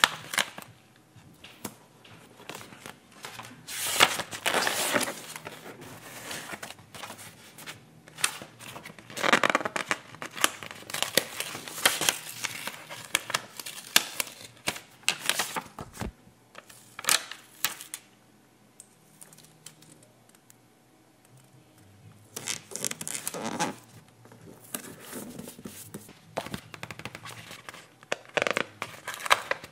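Paper sticker sheets handled and stickers peeled off their backing paper: crinkling and peeling rustles in irregular bursts, with a quieter stretch about two-thirds of the way in.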